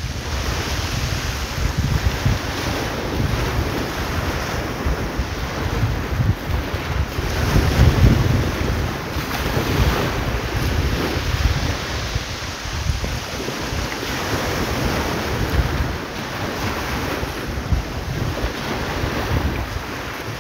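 Wind buffeting the microphone with a heavy, uneven rumble, over the wash of surf breaking on a beach. The sound swells loudest about eight seconds in.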